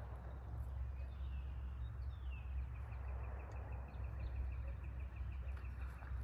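A bird calling outdoors: a couple of short downward-sliding high notes, then a long even run of quick repeated chirps, about four or five a second, over a low steady rumble.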